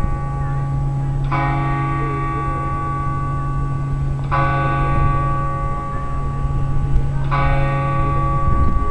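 A large clock-tower bell striking the same note three times, about three seconds apart, each stroke ringing on and fading: a clock striking the hour. A steady low hum runs underneath.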